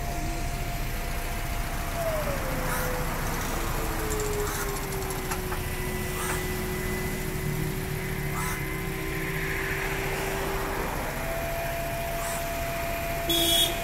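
Tow truck engine running steadily with a whine that slides down in pitch about two seconds in and comes back up near the end. A brief louder noise comes just before the end.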